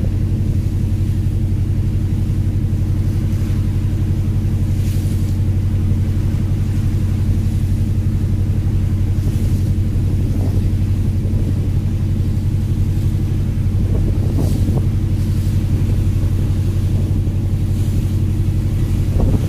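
A fishing vessel's diesel engine running steadily under way: a constant deep drone.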